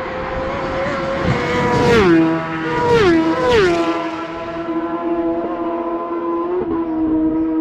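Racing motorcycles passing at speed, three in quick succession. Each engine note drops sharply in pitch as the bike goes by, then a steady lower engine note carries on as they draw away.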